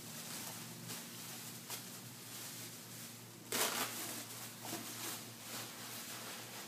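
Plastic bubble wrap rustling and crinkling as it is pulled apart and stuffed into a cardboard box, with a louder crinkle about three and a half seconds in.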